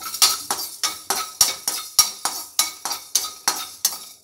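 A utensil stirring and scraping fenugreek seeds around a dry non-stick kadai: quick, even strokes at about three a second, with the seeds rattling on the pan. The seeds are being dry-roasted without oil.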